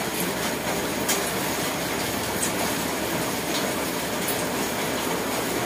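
A steady rumbling background noise with a few faint clicks about a second apart.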